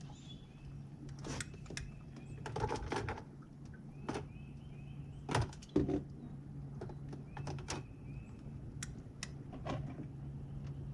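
Electric trolling motor running with a steady low hum, with several sharp knocks against the boat scattered through.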